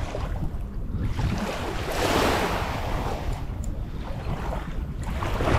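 Sea water washing, with one louder wash about two seconds in, over a low rumble of wind on the microphone.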